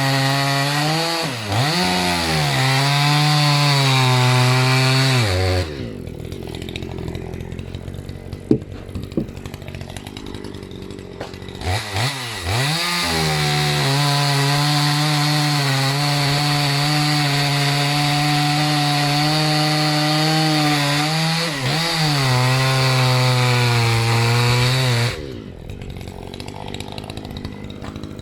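Maruyama MCV5100S two-stroke chainsaw cutting wood at full throttle, its pitch sagging and steadying under load. It drops back to a low idle about six seconds in, with a few light knocks, then cuts again from about twelve seconds. Near the end it falls back to idle.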